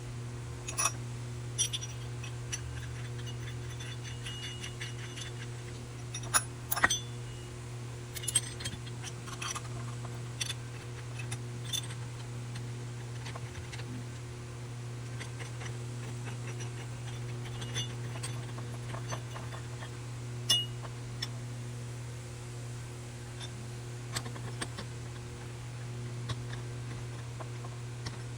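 Scattered metallic clicks and clinks of hand tools and small metal parts being handled, a few louder ones about a third of the way in, over a steady low hum.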